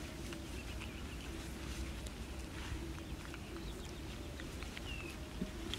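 Outdoor ambience: a steady low wind rumble on the microphone with faint rustling and handling noises as small monkeys move about on a lap, and a faint short chirp about five seconds in.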